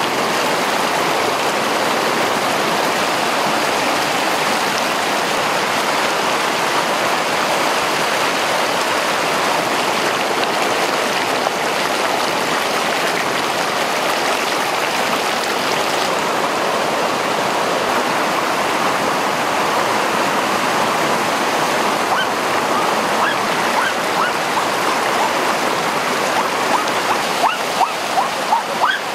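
Rushing stream pouring over rocks: a loud, steady wash of fast-flowing water. A few short sharp sounds come in over it near the end.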